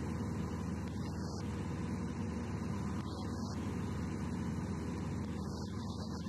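Steady drone of a light aircraft's piston engine and propeller, heard inside the cockpit.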